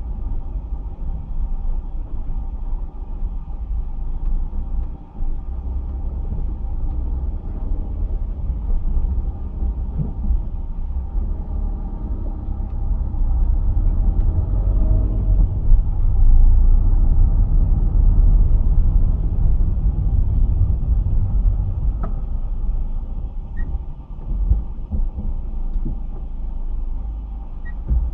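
Low rumble of a 2002 Ford Fiesta 1.4 Zetec on the move, with a few faint knocks. The noise comes from the rear of the car and is put down to a failed silentblock (rubber suspension bushing).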